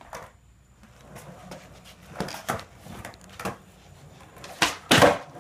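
Skateboard on a concrete floor, the board and wheels knocking against the concrete several times, with the loudest knocks near the end.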